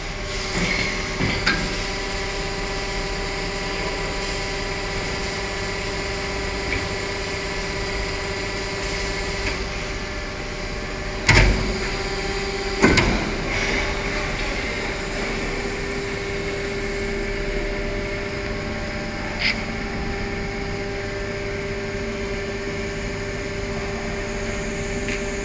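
PVC rain boot injection moulding machine running with a steady hum, two loud clunks about a second and a half apart near the middle and a few lighter knocks and clicks.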